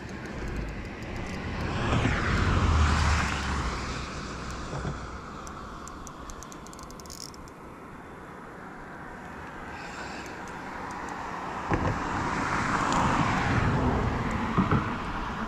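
Two vehicles passing over the bridge, each one swelling up and fading away; the first passes a few seconds in and the second near the end.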